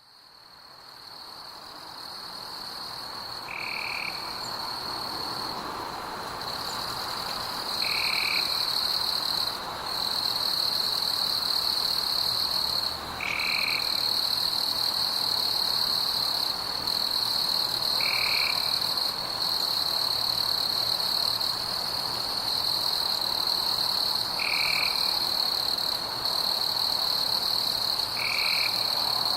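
Night chorus of frogs fading in over the first few seconds: a steady high trill, broken by brief gaps, over a soft background hiss, with a short call repeating about every four to five seconds.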